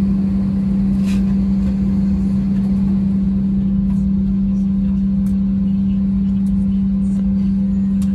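Cabin noise of an Airbus A320-232 taxiing, heard from a window seat over the wing: its IAE V2500 engines running at low thrust, a steady drone with a strong low hum and rumble beneath.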